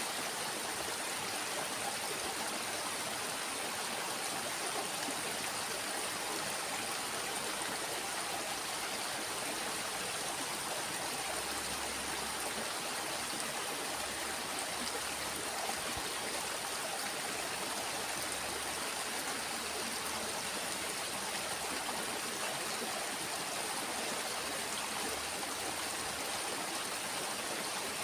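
Water of a small stream flowing and rushing steadily, an even unbroken wash of sound.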